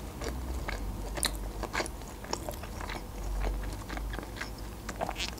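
A person chewing a mouthful of meat roll with cheese and potato: irregular small mouth clicks.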